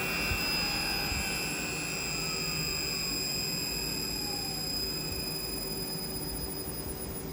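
Electric motor running on a repaired Simovert VC frequency inverter during a test, with steady high whines from the drive over a fan-like hiss. A fainter whine glides down in pitch through the middle.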